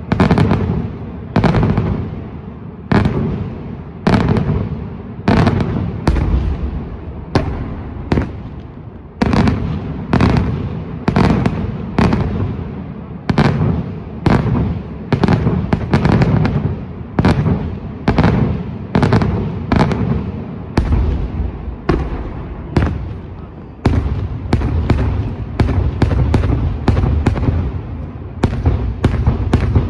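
Daytime fireworks display: aerial shells bursting in a steady series of loud bangs, a little more than one a second. About six seconds from the end the bangs come faster, several a second, over a continuous low rumble.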